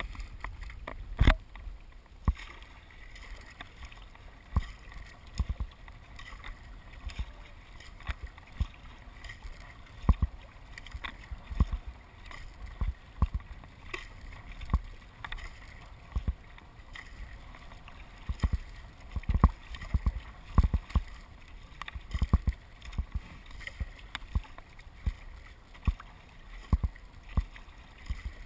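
Kayak paddling on open water: irregular splashes and knocks of water against the hull and paddle, over a steady wash of water.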